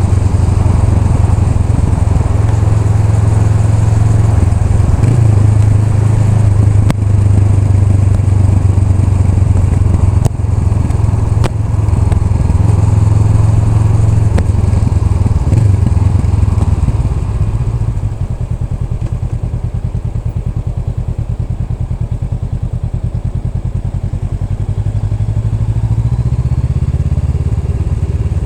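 Honda Rebel 500's parallel-twin engine running while riding. About two-thirds of the way in the sound drops to a quieter, steady, evenly pulsing note, and it builds again near the end.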